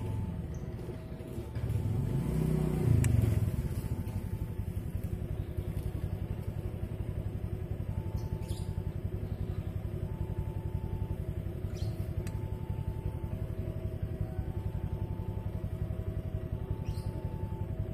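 Railway level-crossing warning alarm sounding while the barriers are down: a fast, even ringing pulse with a higher and a lower tone alternating about once a second. About two to three seconds in, a passing engine briefly swells louder over it.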